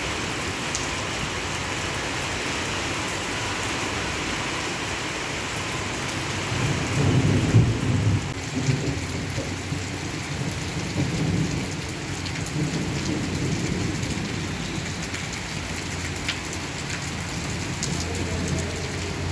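Heavy rain falling steadily, with a roll of thunder rumbling for several seconds about a third of the way in.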